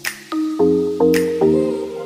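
Background music: short pitched notes changing every few tenths of a second, with a sharp percussive hit about once a second.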